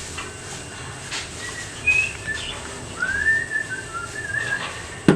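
Thin high whistling notes: a few short ones, then one longer note that rises and levels off about three seconds in, over a steady background hiss. A single sharp knock near the end.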